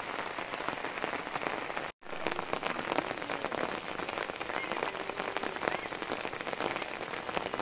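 Steady rain falling, a dense patter of individual drops. It cuts out for an instant about two seconds in.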